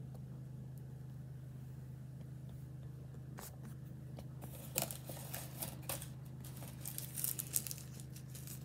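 Clear plastic bag crinkling and rustling in the hand, in scattered bursts from about three and a half seconds in, over a steady low hum.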